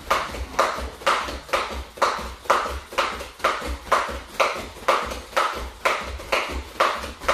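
Skipping rope turning steadily, its cord slapping the foam mat as bare feet land, about two regular strikes a second.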